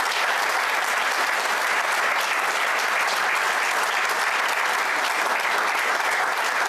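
Audience applauding steadily, a dense clapping that holds at an even level throughout.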